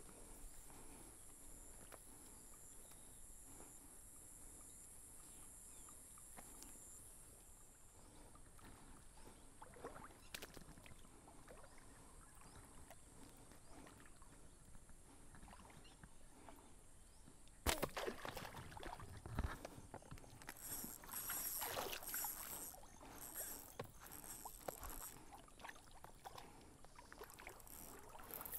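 Brush rustling and water sloshing as someone moves through flooded, weedy scrub at a reservoir's edge. A steady high hiss stops about a quarter of the way in. About two-thirds of the way in a sudden sharp knock is followed by a few seconds of louder rustling and splashing.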